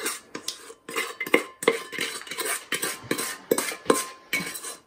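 Spatula scraping and knocking inside a stainless steel saucepan as sticky pecan pie syrup is worked out of it, in a quick run of strokes about three or four a second, with the metal pot ringing faintly after some of them.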